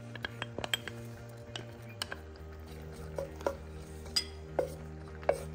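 Wooden spoon scraping diced garlic out of a ceramic bowl and stirring it in a saucepan of melted butter and oil, with irregular light knocks of the spoon against the bowl and pan.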